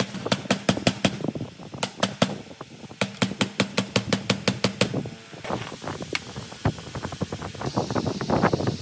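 Steel hammer striking the rusted threaded steel shaft of an old table saw where it passes through its housing, in quick runs of about five blows a second with short breaks. From about halfway the blows thin out and give way to lighter metal clicks as the parts are handled.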